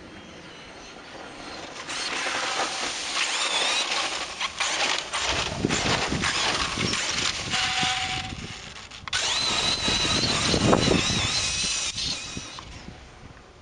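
Brushless electric motor and drivetrain of a 1/5-scale RC buggy (HPI Savage Flux on 4S LiPo) whining at speed, with the rush of tyres on loose dirt. It comes up about two seconds in, dips briefly around nine seconds, comes back loud, then fades near the end.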